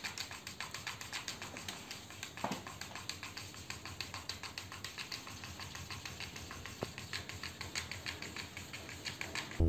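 A cat pawing at a laptop and treading its keyboard: a fast, quiet run of light clicks and taps, several a second.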